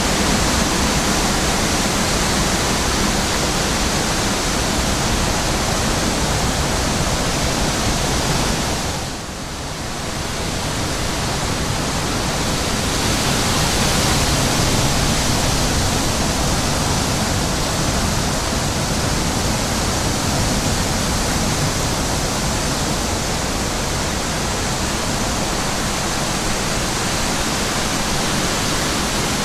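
Steady wind noise in a field, an even rushing hiss that eases briefly about nine seconds in.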